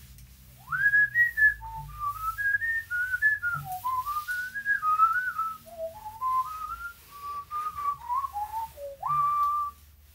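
A person whistling a tune: a melody of short notes wandering up and down, beginning with an upward slide about half a second in and ending on one long held note near the end.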